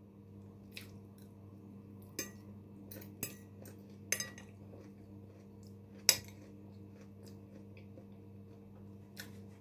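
Cutlery clinking lightly against a plate during a meal: about six short, sharp clicks at irregular intervals, the loudest about six seconds in, over a faint steady low hum.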